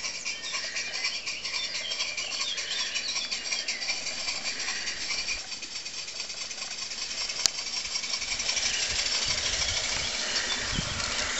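Live-steam garden railway locomotive running, its exhaust chuffing in fast, even beats over a hiss of steam. A low rumble joins near the end as it passes close.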